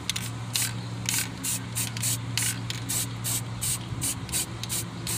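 Aerosol spray paint can spraying in short, quick bursts, about three a second, a hiss each time the nozzle is pressed as the paint goes onto the fan blade.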